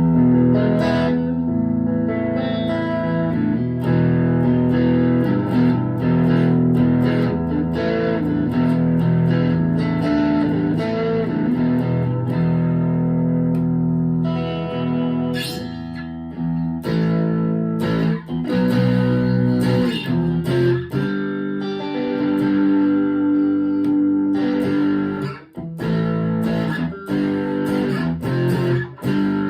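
Chapman ML3 Pro Thinline electric guitar played through an amp with a crunchy overdriven tone, ringing chords and riffs with a short break about 25 seconds in.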